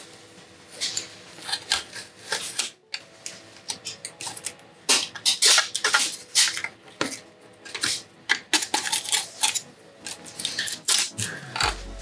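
A metal 3D-print spatula scraping and prying under the edges of a plastic 3D-printed shell stuck to a taped printer bed, working it loose: irregular scrapes and sharp clicks, thickest about halfway through.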